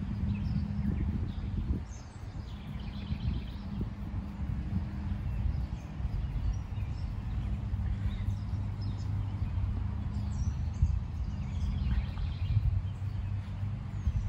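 Outdoor ambience: a steady low hum of construction machinery over a fluctuating low rumble, with birds chirping briefly a few times.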